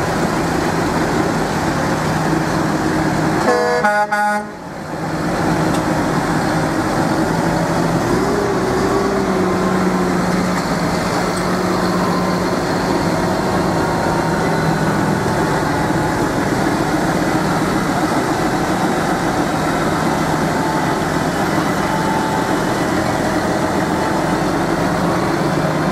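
Steady road-vehicle noise, with a short horn toot about three and a half seconds in.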